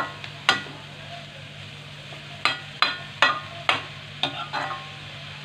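A steel spatula stirs chopped cabbage in a metal kadhai, knocking against the pan once early and then about six times in quick succession around the middle, over a light sizzle of the vegetables frying.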